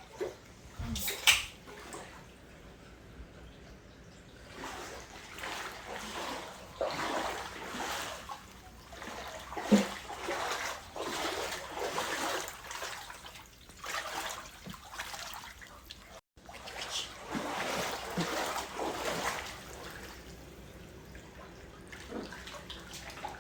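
Water splashing and sloshing in irregular swishes, with two sharp knocks, one near the start and one about ten seconds in.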